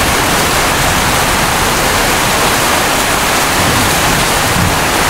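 Steady, loud rush of heavy thunderstorm rain falling.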